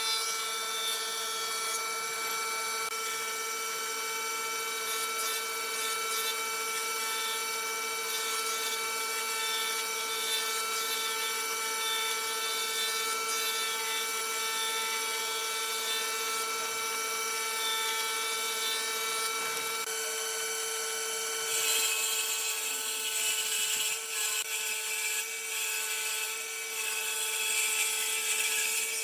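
A woodworking power tool running steadily with a constant whine. About two-thirds of the way through the sound turns noisier and brighter, as when the tool bites into wood.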